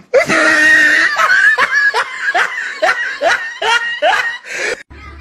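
A person laughing hard: a run of short, rising 'ha' bursts, about three a second, that cuts off suddenly near the end.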